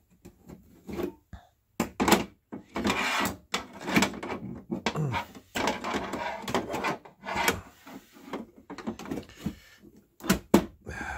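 Metal oven door hinges being handled and worked by hand: an irregular run of clicks and knocks mixed with short scraping rasps.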